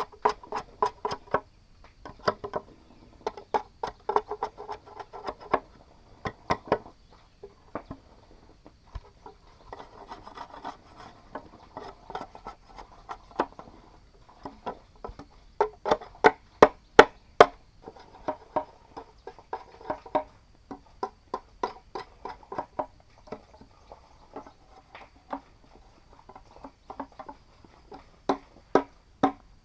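Hand tools knocking and tapping on bamboo: irregular sharp knocks with a short woody ring, in clusters, with a run of louder rapid strikes a little past halfway.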